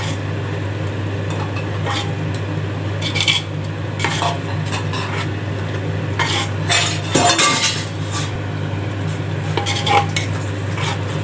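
A long metal spoon stirring thick gravy and herbs in a large metal pot, scraping and knocking irregularly against the pot's sides, over a steady low hum.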